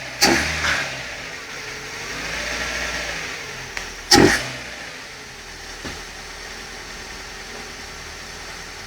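Chevrolet Corsa 1.0 VHC engine breathing through an open single-flow sports air filter, loud. It gives short, sharp throttle blips at the start and again about four seconds in, with a slower rev rising and falling between them, then settles to a steady idle.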